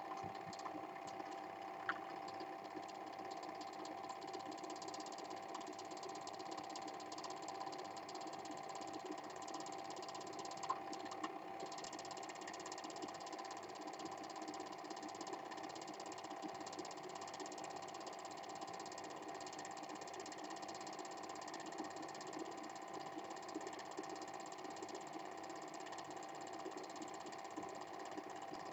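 Standard 8mm cine projector running steadily: a motor hum under the rapid, even clatter of the film transport, with a few faint clicks.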